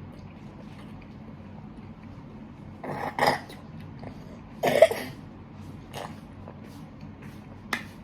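Two short coughs, about three and five seconds in, the second the louder, with a few faint clicks in between.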